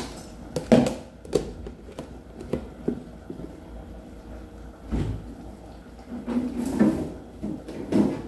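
Scattered knocks and clunks of kitchen things being handled, a plastic food container among them, with a denser run of clattering near the end.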